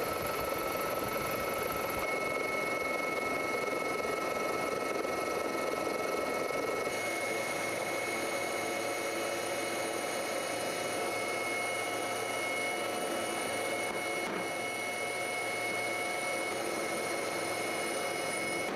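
Steady helicopter turbine engine noise with several high, even whining tones. Its tone shifts about seven seconds in.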